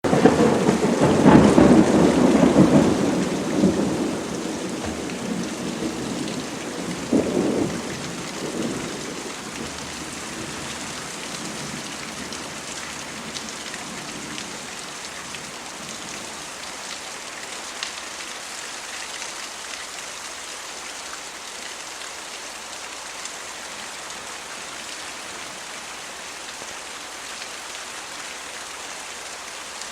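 Thunder rolling loudly over steady rain for the first few seconds, with a shorter rumble about seven seconds in. It then fades, leaving an even patter and hiss of rain.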